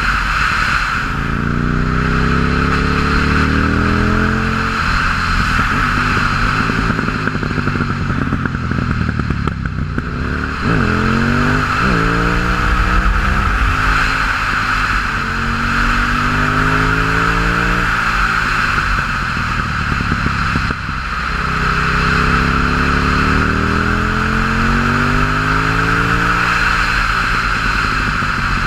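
2006 KTM 950 Supermoto's V-twin through an open MIVV exhaust with the dB-killers removed, pulling hard through the gears: the revs climb, drop at a shift and climb again several times over, under a steady hiss.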